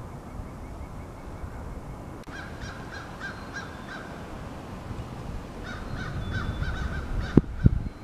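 Steady wind noise with two runs of quick, repeated bird calls, each lasting a couple of seconds, and a sharp knock near the end.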